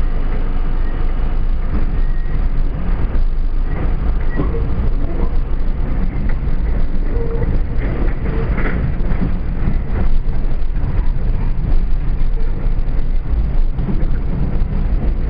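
R32 subway train running along the rails, heard from inside the front car: a steady loud rumble of wheels on track, with short faint squeals here and there.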